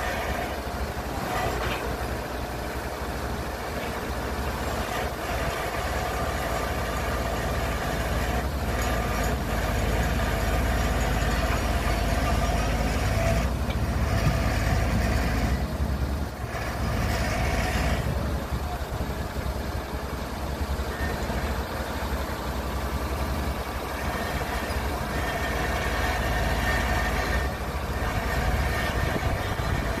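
Diesel engine of a Komatsu PC120 excavator working a clamshell grab, with a farm tractor's engine running alongside: a steady, heavy engine rumble.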